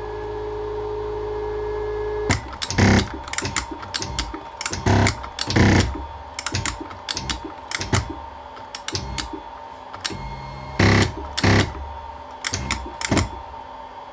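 Stepper motor driving a drill-press knee's ball screw through a toothed belt, first running with a steady hum, then from about two seconds in giving way to irregular clicks and loud knocks as the drive jams: the ball screw has probably run down onto the wooden table beneath it.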